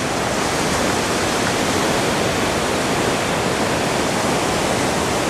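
Ocean surf breaking and washing up the beach, a loud, steady rush of noise.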